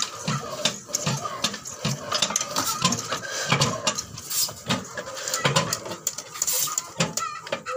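Old single-cylinder horizontal stationary diesel engine of Ruston Hornsby type, with a heavy flywheel, chugging slowly during starting. It gives a regular low thud about three times every two seconds, with sharp metallic clicks in between.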